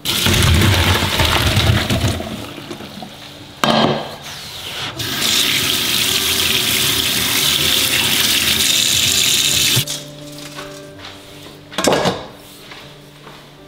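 Hot water and boiled chicken pour out of a pot into a stainless wire strainer basket in a sink, splashing for about two seconds. A few seconds later a kitchen tap runs steadily over the chicken for about five seconds and shuts off suddenly. There is a short knock before the tap and another near the end.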